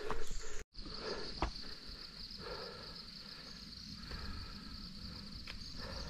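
Insects droning steadily in one high-pitched tone, starting right after a brief dropout under a second in, with a few faint clicks.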